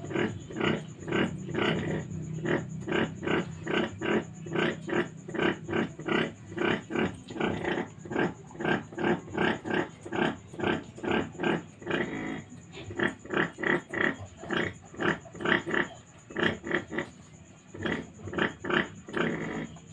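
A badly wounded piglet grunting in short, even pulses, about three a second, pausing briefly twice.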